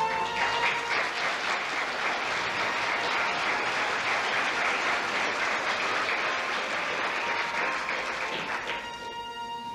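Audience applauding steadily, fading out near the end as music comes back in.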